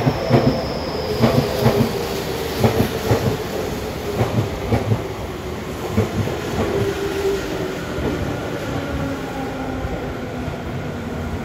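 Tokyu 5050-series electric commuter train pulling into a station and braking. Its wheels click over rail joints in quick pairs that come further apart as it slows, a whine falls in pitch, and there is a faint high squeal near the start.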